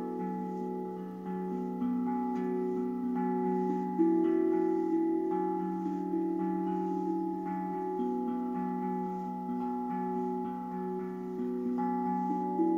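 Kosmosky Dvutone steel tongue drum in B minor played with soft-headed mallets: a slow, flowing melody of struck notes, each ringing on and overlapping the next.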